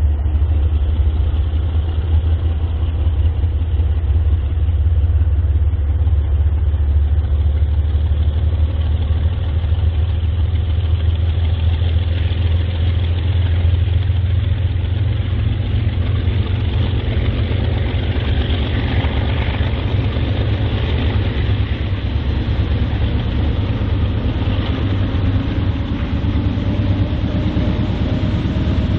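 Diesel freight locomotives running with a heavy low rumble. Over the second half, an engine note climbs steadily in pitch.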